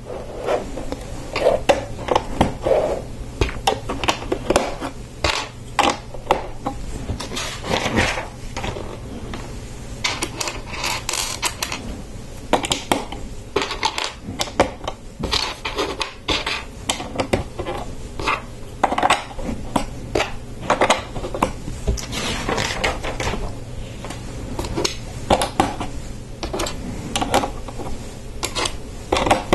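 Plastic LEGO bricks clicking and clattering as they are picked from loose pieces on the table and pressed onto the model, a run of short irregular clicks.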